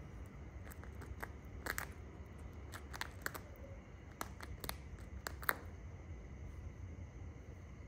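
Shikra tearing at a pigeon carcass with its beak: a scattered series of sharp clicks, snaps and crunches of flesh and feather, ending about five and a half seconds in, over a steady low hum.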